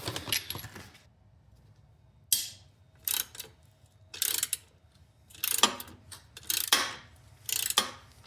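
Socket ratchet wrench being worked in short strokes, its pawl clicking in a burst about once a second as fasteners are loosened.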